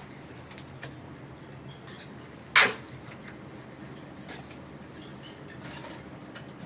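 Scattered light clicks and scrapes over a steady low hum, with one sharp, loud knock about two and a half seconds in.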